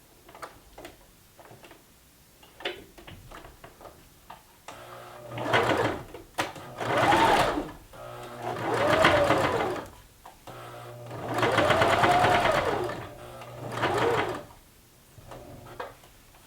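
Baby Lock sewing machine stitching in several short runs, its motor pitch rising and falling with each run as it speeds up and slows down. Light clicks of handling come before the first run.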